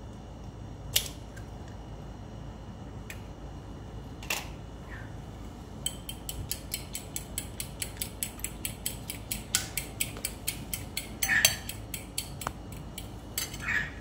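Eggs being cracked and then beaten with a metal fork in a ceramic bowl: a few sharp taps in the first few seconds, then from about six seconds in a quick, steady clinking of the fork against the bowl, about four strokes a second.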